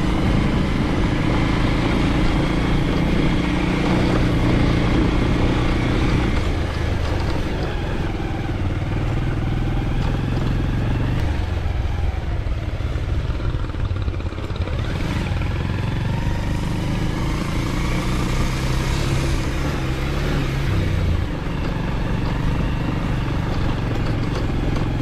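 Motorcycle engine running as the bike is ridden, heard from on board. It eases off about halfway through and picks up again.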